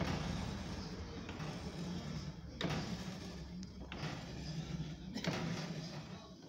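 A motorised kite-line coating machine (a five-nozzle 'submarino') running with a steady low hum and whirring, cutting out sharply for a moment three or four times and starting again.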